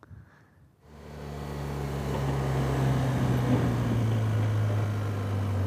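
A motorcycle engine comes in about a second in, grows louder over the next second or so, then runs steadily.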